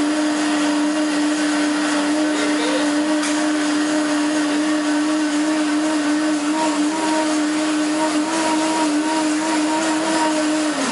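A motor running at one steady pitch, a constant hum, over the even background noise of a busy street.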